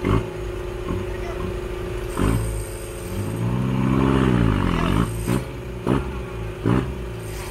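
Off-road vehicle engine running steadily, revved up and back down once about halfway through, with several sharp knocks or clunks.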